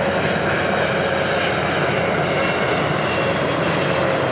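Boeing 777 freighter's GE90 jet engines, a steady loud rush of engine noise with a faint whining tone that drops slightly in pitch near the end.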